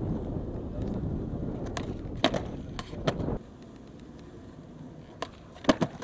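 Skateboard wheels rolling on rough concrete with a steady low rumble that stops abruptly a little past halfway, with several sharp clacks of the board; the loudest are two clacks close together near the end.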